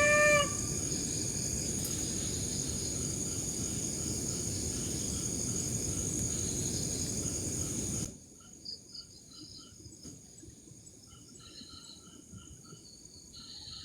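Crickets chirping in a steady high trill, with the end of a cat's meow at the very start. About eight seconds in, the background hiss drops away abruptly and fainter, broken chirping carries on.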